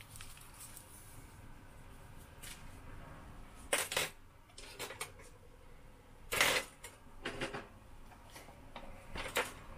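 Several scattered light clicks and knocks, the loudest about six and a half seconds in: a metal spoon and small kitchen items being handled around a stainless steel mixing bowl.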